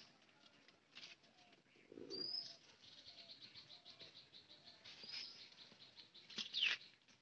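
Birds calling faintly: a short, high rising whistle repeated every two to three seconds, with a fast trill between and a falling whistle near the end.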